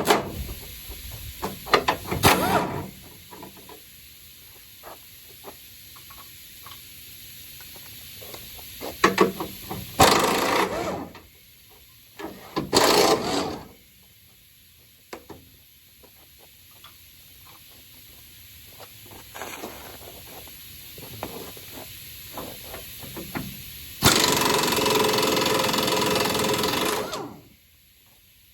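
Pneumatic impact wrench loosening bumper bolts on a 1993 Chevy pickup: several short rattling bursts, then one longer run of about three seconds near the end. Scattered clicks of the socket and tools come between the bursts.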